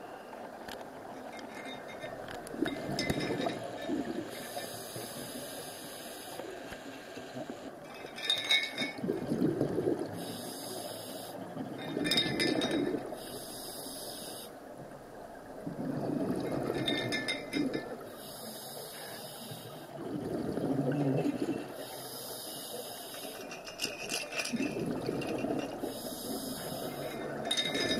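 A scuba diver breathing through a regulator underwater: a hissing in-breath alternates with loud gurgling bursts of exhaled bubbles, repeating about every four seconds.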